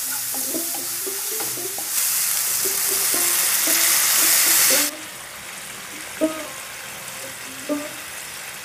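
Chopped onion, tomato and green chillies sizzling in ghee in a frying pan. About two seconds in, water poured into the hot pan makes the sizzle jump much louder and brighter for about three seconds. It then drops back to a quieter simmer, with two sharp knocks near the end.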